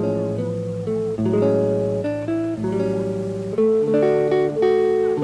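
Background music: acoustic guitar playing picked chords that change about once a second.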